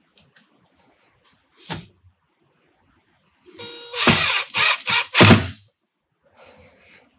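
Cordless drill driving a screw in one short run of about two seconds, starting with a brief motor whine about three and a half seconds in. A single light knock comes earlier, just under two seconds in.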